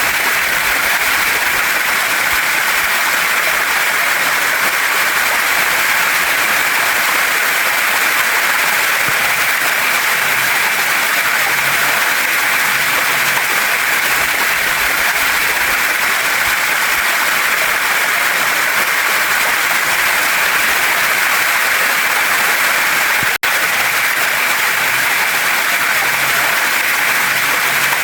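Waterfall and stream water rushing steadily over rocks, an even, unbroken hiss. It cuts out for a split second near the end.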